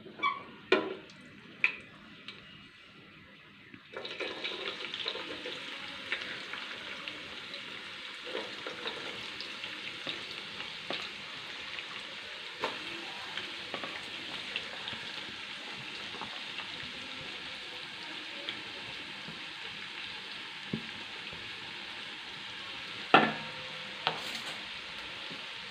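Thinly sliced onions frying in hot oil in a biryani pot: a steady sizzle with small crackles that starts suddenly about four seconds in. A few clinks come before it, and there is a sharp knock of a utensil near the end.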